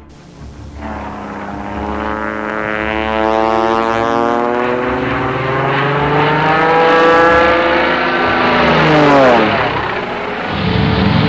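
Piston-engined propeller aircraft flying by: the engine note comes in about a second in, grows louder and rises slightly in pitch, then drops steeply as the plane passes, about nine seconds in. Near the end a steady engine sound starts again.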